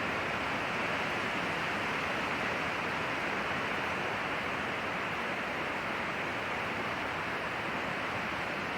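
Wind blowing through pine trees: a steady, even rushing hiss of the wind in the needles and branches, with no gusts or breaks.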